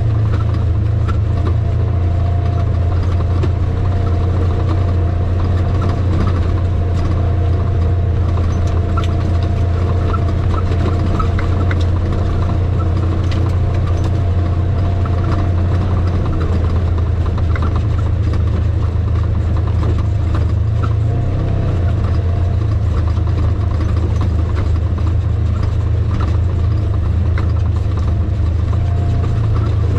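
Vehicle engine running at a low, steady speed, a constant low drone. Scattered light clicks and knocks come from the vehicle rolling over a rough, rocky dirt track.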